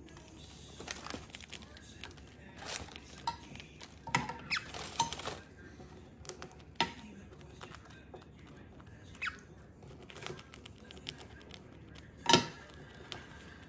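Cockatiel picking at a plastic cracker bag and then pecking and nibbling cracker on a wooden table: scattered light crinkles, taps and crunches, with one sharp knock near the end.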